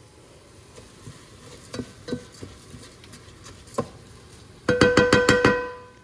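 A utensil tapped rapidly against a cooking pot: about ten quick ringing clinks in under a second, near the end, after a few scattered light clinks and knocks.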